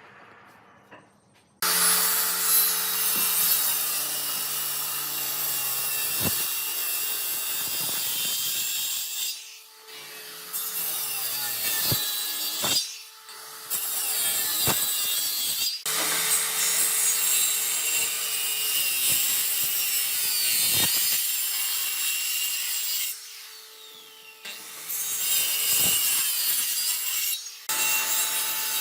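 Power tool working wood in several passes, a dense grinding noise over a steady motor hum. It starts abruptly about a second and a half in and breaks off briefly a few times between passes.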